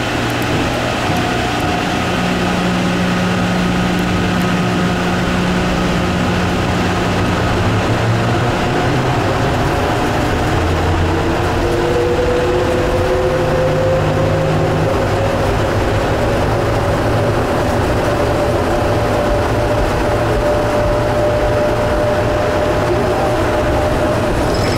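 Rubber-tyred airport people-mover train running through its tunnel: a steady rumble and hum, with a motor whine that rises in pitch partway through as the train gathers speed, then holds.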